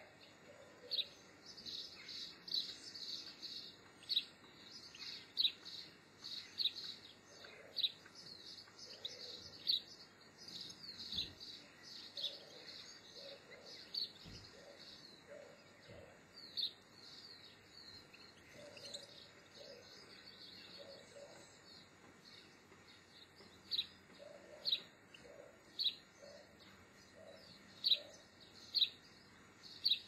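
Small garden songbirds chirping: many short, high, falling chirps, crowded together for the first dozen seconds and then more spaced out, with a few louder single chirps near the end. Faint low soft notes sound beneath them now and then.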